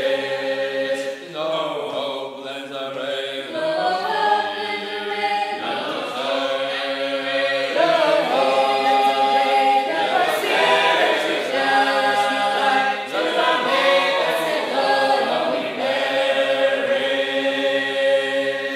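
Sacred Harp shape-note singers singing a hymn unaccompanied in four-part harmony, moving through a series of held chords.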